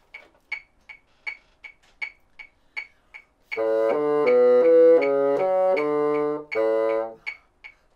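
A metronome clicks steadily, about two and a half times a second. About three and a half seconds in, a bassoon joins it with a quick pattern of notes in fourths starting on A, and breaks off briefly near the end.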